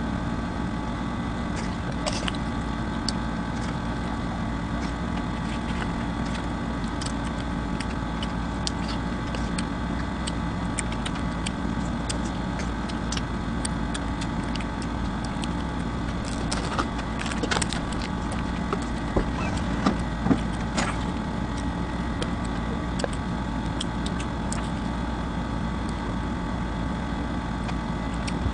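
Close-up eating sounds: small clicks and crackles of chewing and of kubos flatbread being torn by hand, scattered throughout, with a few louder ones a little past the middle. Under them runs a steady mechanical hum.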